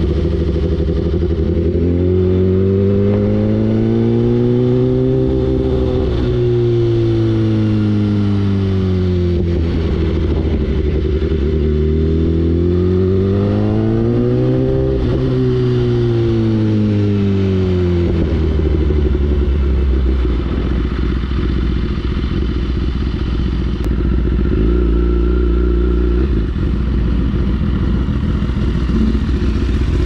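BMW inline-four superbike with an Akrapovic exhaust, riding: the engine note rises and falls twice as the rider rolls on and off the throttle, then settles into a steady low running from about 18 seconds in.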